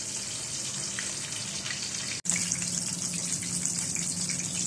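Zubaidi fish frying in hot oil in a frying pan: a steady sizzle, with a brief dropout about two seconds in. A steady low hum runs under it.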